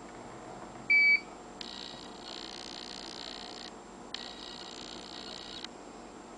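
A single short electronic beep from a CMI SaveTime time clock terminal, about a second in.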